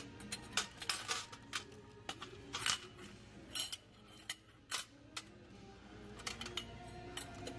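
Irregular sharp clinks and clicks, well over a dozen, as hard items such as dishes, glassware or hangers are handled on thrift-store shelves, with faint background music underneath.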